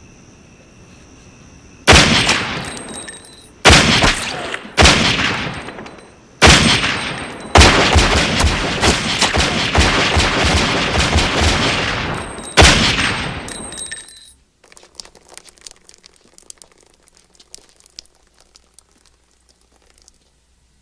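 Gunshots in an execution: four single shots a second or two apart, then a rapid run of many shots, then one last shot, each ringing out. Faint scattered ticks follow.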